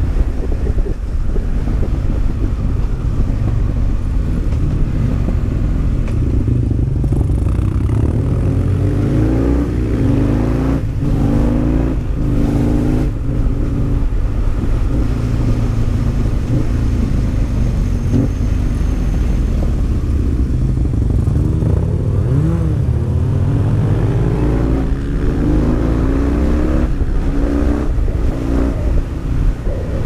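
Husqvarna Nuda 900's parallel-twin engine heard from the rider's seat, its pitch rising and falling repeatedly as the bike speeds up and slows between bends. A heavy low rumble of wind over the microphone runs underneath.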